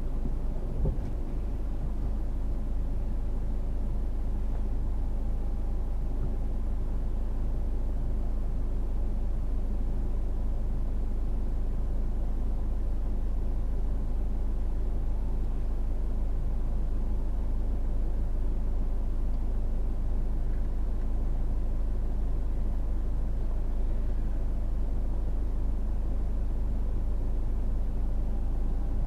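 A car driving along, heard from inside the cabin: a steady low rumble of road and engine noise with an even engine hum. There is a brief knock about a second in.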